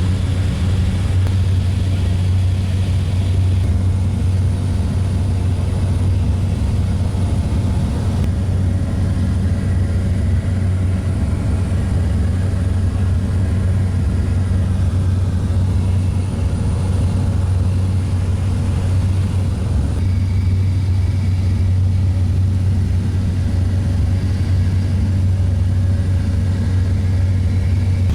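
Light aircraft engine and propeller noise droning steadily, heard inside the cabin, dominated by a strong low hum.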